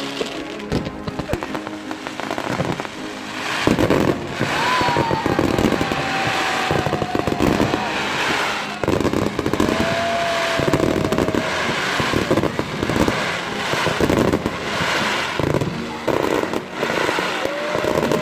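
Fireworks going off in a dense run of crackling bangs that grows louder a few seconds in. Three long whistling tones sound over it, each falling slightly in pitch.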